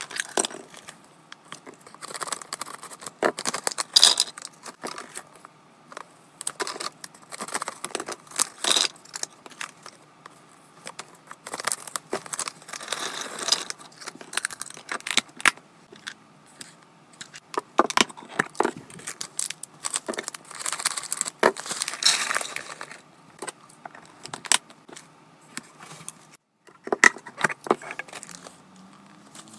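Hands unpacking and sorting small items: packaging rustling in spells, with many sharp clicks and light knocks as things are handled and set down.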